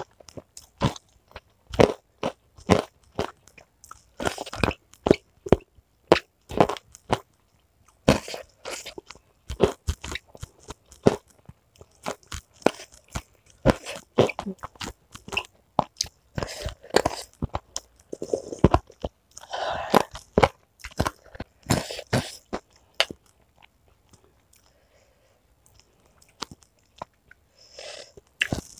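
Close-miked chewing with many sharp, quick crunches of crispy fried chicken cartilage (tulang rangu). The crunching goes quiet for a few seconds near the end, then starts again.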